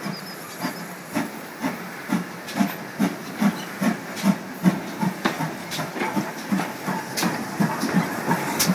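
GWR Large Prairie 2-6-2T steam locomotive 5199 moving slowly at close range, steam hissing over a regular beat about twice a second that grows louder as the engine comes nearer.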